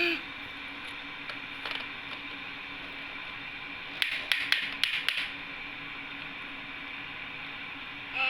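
Plastic toy being handled: a few light clicks, then a quick cluster of clicks about four seconds in, over a faint steady electronic hum.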